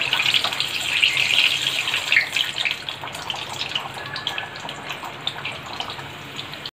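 Bedmi puri deep-frying in hot mustard oil: a steady sizzling hiss full of fine crackles, loudest in the first couple of seconds and then settling lower, as a slotted spoon presses the puri into the oil.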